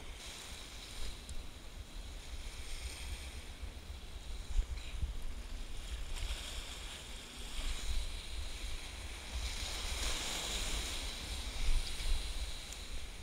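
Ocean surf washing and breaking over breakwall boulders, with wind buffeting the microphone in a constant low rumble. The wash swells louder about ten seconds in.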